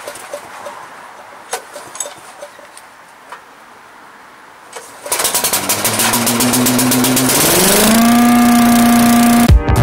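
Billy Goat leaf vacuum's 10 HP Briggs & Stratton engine starting about five seconds in. It catches with a quick run of firing pulses, rises in pitch and settles into a steady high-speed run. A few faint clicks come before it.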